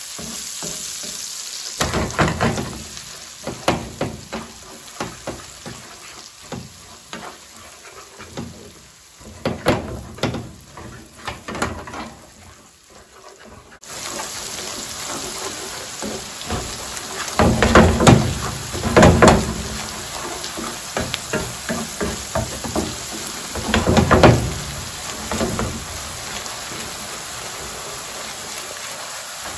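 Minced onion and garlic sizzling in melted butter in a pan while a wooden spatula stirs and scrapes against the pan. The sizzle grows louder about halfway through, and several louder spatula knocks and scrapes come in the second half.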